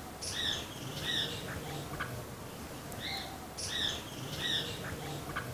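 Birdsong: a short phrase of clear whistled notes, each rising and falling, sung twice about three seconds apart over a faint steady background hiss.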